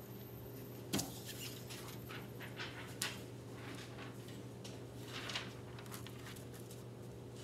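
Sheets being swapped on a projector by hand: a sharp click about a second in, then scattered short rustles and scrapes, over a steady low hum.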